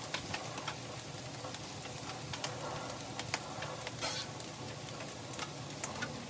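Vegetables frying on a Blackstone flat-top griddle, sizzling steadily, with scattered short scrapes and taps of a metal spatula on the steel griddle top as fried rice is scraped off.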